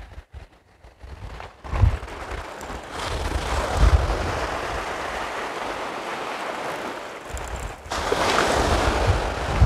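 Small waves breaking and washing in shallow surf, with gusty wind buffeting the microphone. The wind gets louder about two seconds in and again near the end.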